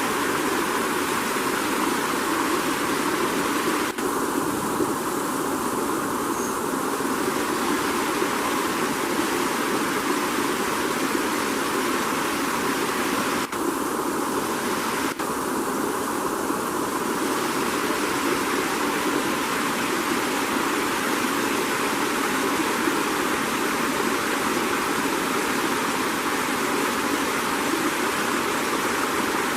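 Steady, loud rushing noise with no pitch or rhythm, like fast-flowing water. It is broken only by a few brief dips.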